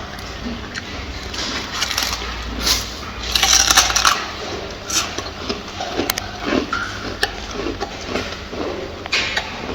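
Gorilla eating: a run of clicks and short crunching noises as it chews and handles food, with a longer, louder crunching burst about three and a half seconds in.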